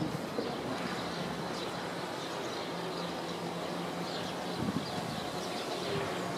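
Outdoor ambience: a faint steady low hum that sets in about a second in, with scattered faint bird chirps.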